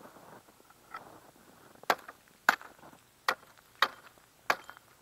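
Hatchet chopping at ice: five sharp blows about two-thirds of a second apart, starting about two seconds in.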